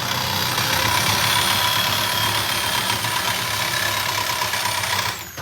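Power cutting tool running hard as it cuts through the ATM's steel casing, a steady high whine over loud grinding noise; about five seconds in it is switched off and the whine falls away as the blade spins down.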